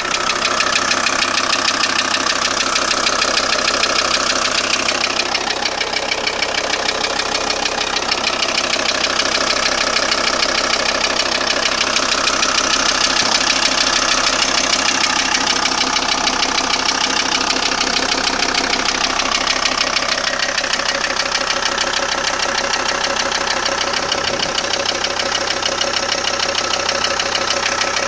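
VW T4 2.5 TDI (AXG) five-cylinder diesel engine running at a steady speed with a clattering rattle, the fault the owner is trying to trace.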